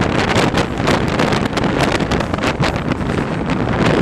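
Heavy wind buffeting on the microphone held outside the coach of a fast-running Indian Railways express train, over the steady rumble of the coach's wheels on the rails.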